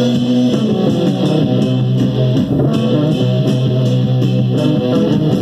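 Guitar-band song played back through a Bose loudspeaker: electric guitar over a steady bass line with long held low notes.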